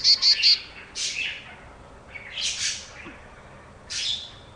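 A young chickadee calling: a quick run of high chirps at the start, then three hoarser, raspy high calls about a second and a half apart.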